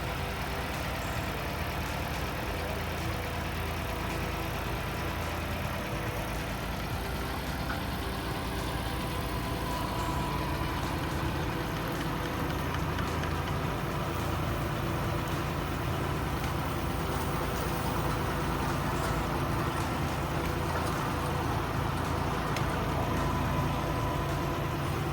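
Tractor engine running steadily while digging, a little louder in the second half.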